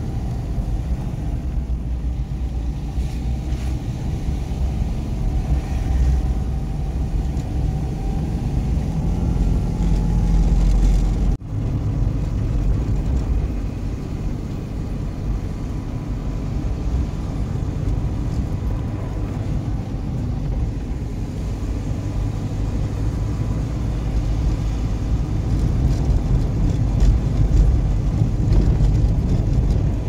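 Car driving along a country road, heard from inside the cabin: steady engine and tyre rumble, broken by a sudden short drop about eleven seconds in.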